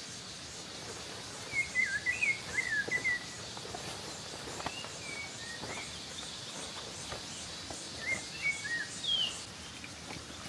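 A bird singing in two bursts of quick, short chirps, one about a second and a half in and one near the end, over a steady outdoor hiss.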